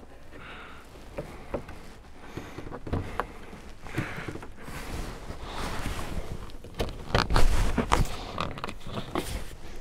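A plywood strip being worked into place inside a cabinet opening: scattered knocks, taps and scraping. The loudest bumps come about seven to eight seconds in.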